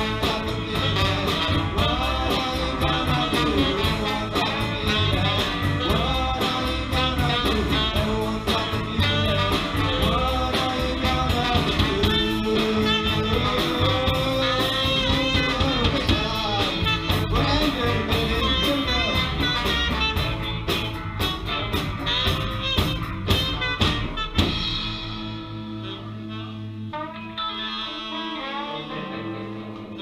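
Live blues band with saxophone, trombone, electric guitars and drums playing, with a singer at the mic. About 24 seconds in the full band drops out, leaving quieter held notes ringing.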